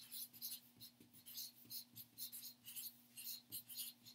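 Marker pen squeaking and scratching across chart paper on a wall in quick short strokes while words are written out.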